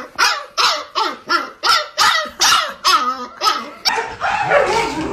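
Husky puppy barking in quick, evenly spaced yelps, about two or three a second, each dropping in pitch. The yelps stop a little under four seconds in, and a more continuous, noisier sound takes over.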